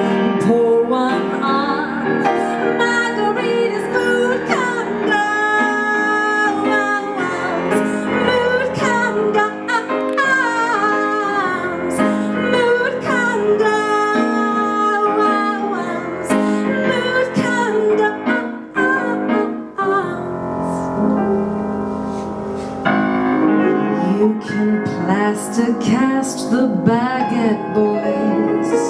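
A woman singing with piano accompaniment. Her voice drops out for a few seconds past the middle, leaving the piano alone, then comes back.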